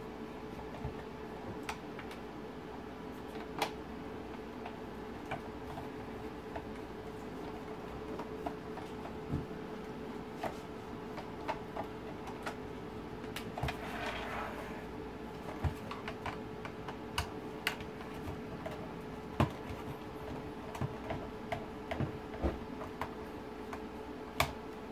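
A hand screwdriver undoing screws from the plastic back casing of an Audi TT MK1 instrument cluster: scattered small clicks and taps of the tool, screws and plastic, with a short scrape a little past halfway. A steady low hum runs underneath.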